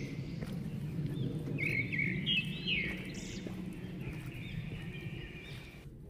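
Forest birds calling: a run of quick, arching chirps about a second and a half in, with fainter calls after. Beneath them is the low crunch of footsteps on a red volcanic-scoria path.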